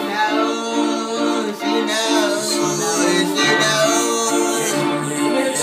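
Music intro: a repeating melodic loop, with a low bass line coming in about three and a half seconds in.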